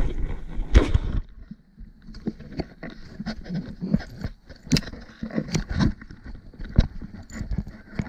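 Camera handling noise: irregular knocks, scrapes and rubbing as the camera is picked up and moved about against a backpack, with a sharp knock about a second in.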